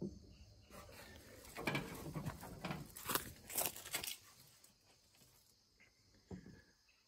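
Quiet rustling and scraping of a handheld camera being moved about beneath a car, loudest in the first half and then fading, with one soft thump about six seconds in.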